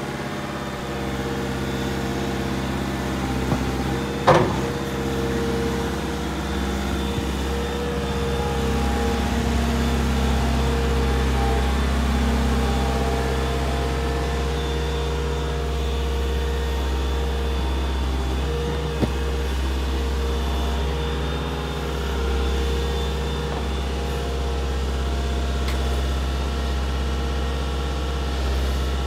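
Deutz diesel engine of a 2007 Liebherr A309 Litronic wheeled excavator running steadily while the boom and bucket dig, with a sharp knock about four seconds in.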